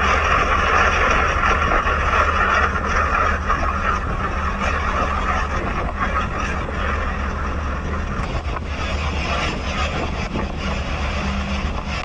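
Boat engine running steadily with the rush of water and wind, a constant low drone under a broad hiss.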